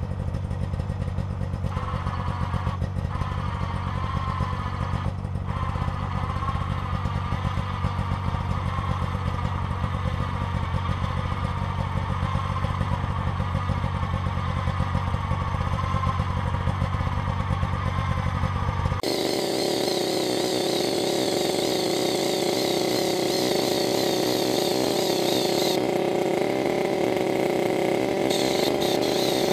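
Snowmobile engine idling while the electric motor of a Champion 2000 lb ATV winch whines steadily under heavy load, slowly dragging the sled and a towed log uphill. About two-thirds of the way through, the sound suddenly jumps higher and faster as the footage is sped up fourfold.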